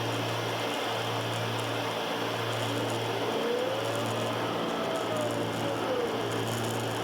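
Cessna 310's twin piston engines and propellers droning steadily in flight, heard inside the cabin, with a low hum that swells and dips about once a second. A faint tone rises and then falls near the middle.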